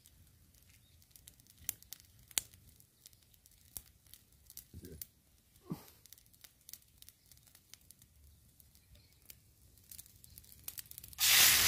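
Hands picking and tearing water spinach (kangkung) stems, with scattered soft clicks and crackles from a small wood fire. About eleven seconds in, a loud sizzle starts suddenly as the greens go into hot oil in the frying pan.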